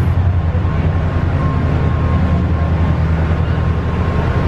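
Steady low drone of a river cruise boat's engine, heard inside the passenger cabin while the boat is underway.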